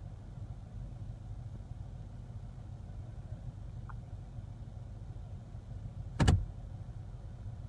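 Steady low engine hum and rumble heard from inside a car's cabin while it waits in traffic, with one sharp knock about six seconds in.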